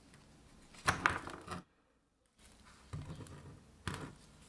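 Rusty brake caliper carrier being handled on a workbench: a cluster of scraping clatters of metal on the bench about a second in, then lighter knocks and rustling from gloved hands.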